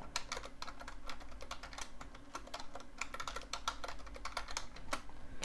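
Typing on a computer keyboard: a rapid, irregular run of key clicks that stops near the end.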